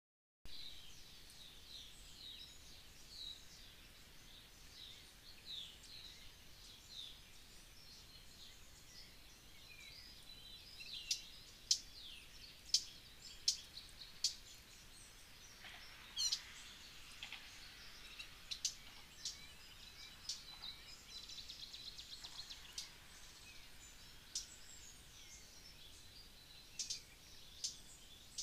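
Small birds chirping and calling faintly, many short falling chirps in quick succession, with a few sharp ticks standing out about eleven to fourteen seconds in.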